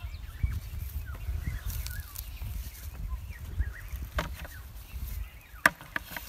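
Small birds chirping over a steady low rumble, with a few sharp knocks near the end.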